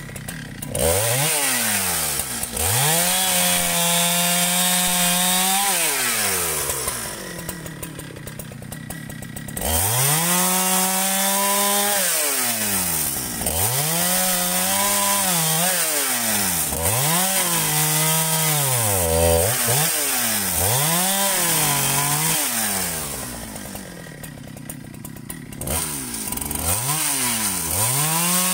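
Husqvarna 395 two-stroke chainsaw revving up to full throttle and falling back to idle. It revs up about a second in and holds until the first drop to idle. It revs again and dips and climbs in pitch several times, falls back to idle a second time, then revs up once more near the end.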